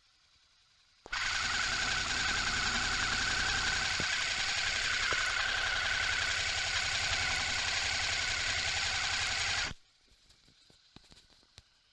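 Suzuki V-Strom 650's V-twin engine running, picked up through a contact microphone on the bike: a steady mechanical drone with a fast, even pulse and a bright high tone over it. It starts abruptly about a second in and cuts off near the end, leaving faint scattered clicks.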